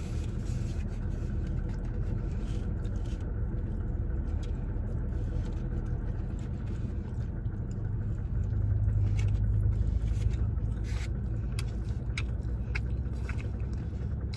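Car engine idling, a steady low rumble heard inside the cabin, louder for a couple of seconds about eight seconds in. A few soft clicks come near the end.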